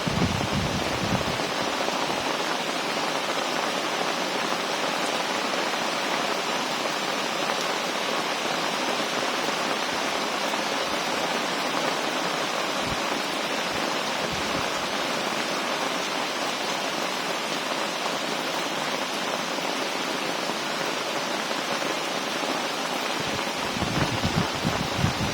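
Heavy rain pouring down steadily, a dense even hiss. Low gusts of wind buffet the microphone in the first couple of seconds and again near the end.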